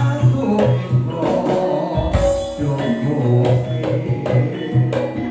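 Campursari music: Javanese popular music in which drum strokes keep a steady beat over a deep bass line and several melodic instruments.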